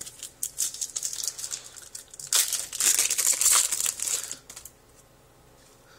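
Foil wrapper of a trading card pack crinkling and rustling as it is handled and torn open by hand. There is scattered rustling at first, then a denser spell of crinkling from a little over two seconds in, which stops before five seconds.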